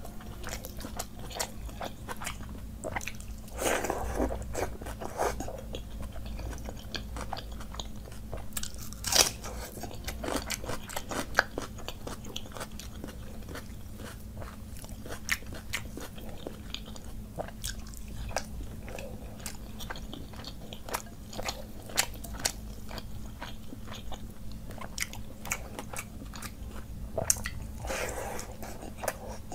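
Close-miked eating by hand: crunching and chewing of fried fish and wet, squelchy mouthfuls of water rice (panta bhat), with many sharp bite and mouth clicks and a wet slurp near the end. A faint steady hum lies underneath.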